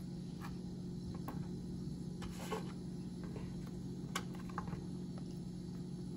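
A few light, scattered clicks and taps as a pointed utensil pokes holes in a habanero pepper on a wooden cutting board, the sharpest about four seconds in, over a steady low hum.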